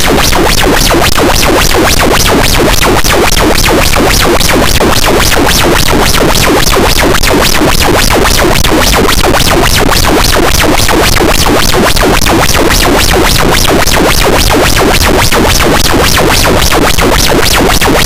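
Harsh noise wall: a loud, unchanging wall of dense distorted static filling every pitch from deep bass to hiss, with a fast, even pulsing running through it.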